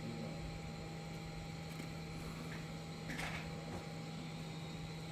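Small handling noises of parts being fitted into an opened cell phone: a brief scrape about three seconds in and a few faint clicks, over a steady electrical hum.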